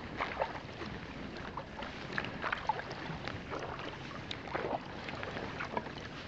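Sea kayak being paddled: water splashing and dripping off the double-bladed paddle with each stroke and washing along the hull, many small splashes over a steady wash of water.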